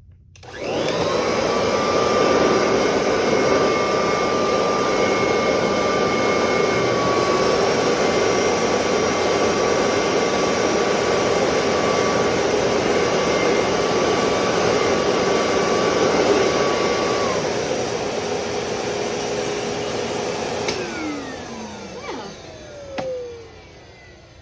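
Kirby Dual Sanitronic upright vacuum cleaner switched on at its highest setting, its motor whining up to full speed within a second. It runs steadily for about twenty seconds, then is switched off and winds down with a falling whine near the end.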